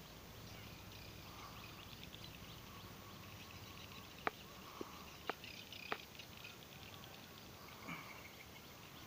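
Four short, sharp clicks of small plastic drip-irrigation fittings being handled and pressed together, about four to six seconds in, over a faint rural background with insects chirping.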